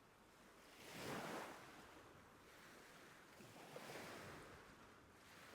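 Faint ocean surf, waves washing ashore in two swells about three seconds apart.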